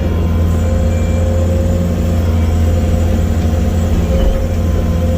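Bobcat T870 skid-steer loader's diesel engine running steadily, with a thin steady whine above it.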